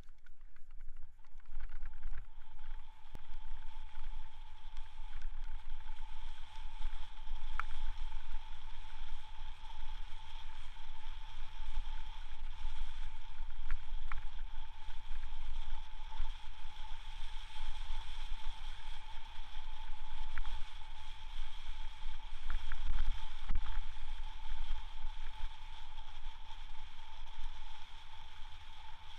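Muffled low rumble of a bicycle riding down a snow-covered trail, heard through the camera, with a steady high whine throughout and a few sharp ticks.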